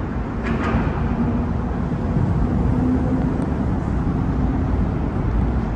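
Steady low rumble of road traffic on the freeway overpass, with no distinct events.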